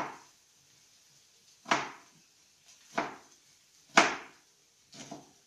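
Kitchen knife chopping food on a cutting board: five slow, uneven strokes about a second apart, the fourth the loudest.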